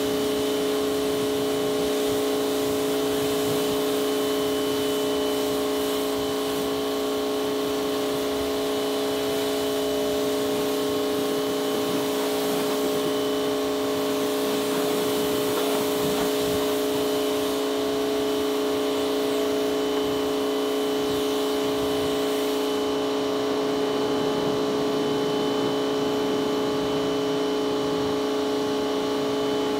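Pressure washer running with a steady hum while its jet of water hisses against the car's paintwork. About three-quarters of the way through the high hiss thins out while the hum carries on.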